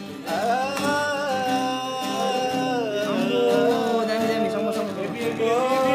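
A man singing a long, held note that bends down and back up in pitch, over acoustic guitar accompaniment.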